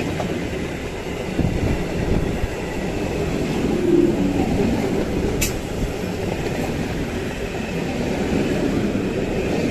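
EMU local train running past close by at speed: a steady loud rush and rumble of steel wheels on the rails, with a single sharp click about halfway through.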